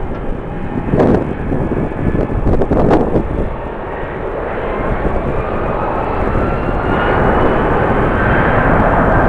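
Jet airliner engines growing steadily louder, with a thin whine slowly rising in pitch. Gusts of wind buffet the microphone in the first few seconds.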